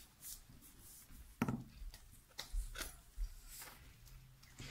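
A few faint, scattered taps and clicks of small objects handled at a table.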